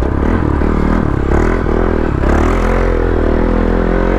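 Off-road motorcycle engine running and revving, its pitch rising and falling a couple of times before holding steady near the end.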